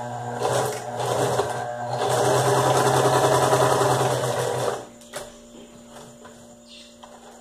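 Electric domestic sewing machine stitching a seam through felt, running at a moderate pace at first, then faster and louder from about two seconds in, and stopping abruptly about five seconds in.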